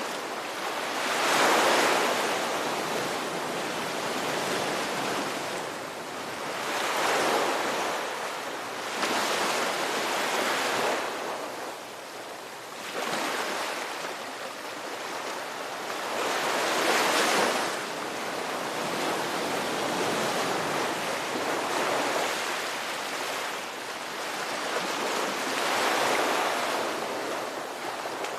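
Ocean surf: waves washing in and drawing back, the rush of water swelling about six times, every four to five seconds.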